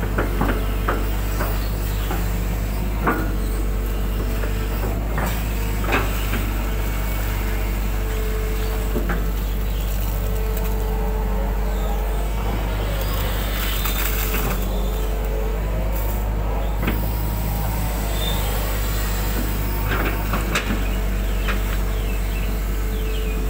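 Hitachi 120 hydraulic excavator's diesel engine running steadily under digging load, heard from the operator's cab, with a hydraulic whine that rises and falls as the boom and bucket move. A few sharp clunks from the bucket and linkage come through at intervals.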